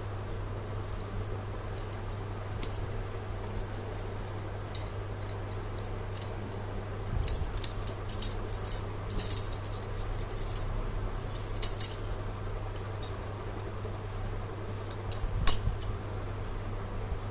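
Packaging being handled: scattered light crinkles and clicks, busiest in the middle, with one sharper click near the end, over a steady low hum.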